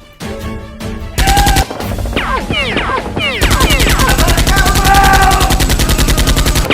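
Automatic gunfire sound effect: a short burst of very rapid shots just over a second in, then a long sustained burst from about three and a half seconds in, with falling whistling tones between the shots.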